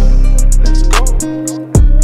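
Instrumental trap beat with no vocals: deep sustained bass notes, sharp percussion hits and a melodic line. The bass drops out a little past the middle and comes back near the end.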